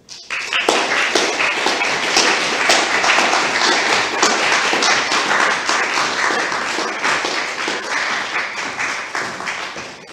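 Small audience applauding, many hands clapping at once; the clapping starts just after the opening and tapers off near the end.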